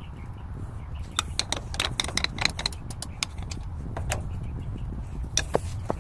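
Quick irregular metallic clinks and taps of a diesel fuel filter and its sediment bowl being taken apart and handled, bunched in the first half, with a few more near the end, over a steady low rumble.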